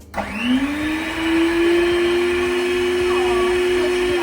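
Electric hand mixer switched on, its motor rising to speed within a split second and then running steadily as it beats cookie batter.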